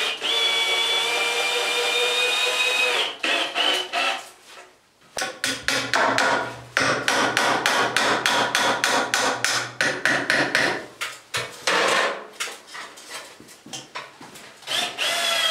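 A drill driver whines steadily for a few seconds as it drives a screw into 3x2 timber. Then comes a long run of quick hammer blows knocking a screw and wall plug through the timber into the masonry wall, a few lighter taps, and the drill driver whining again near the end.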